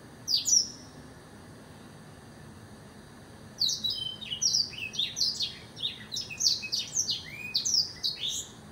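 Blackthroat (black-throated canary) singing: one short high call near the start, then, after a pause of about three seconds, a fast run of many short, high chirping notes lasting about five seconds.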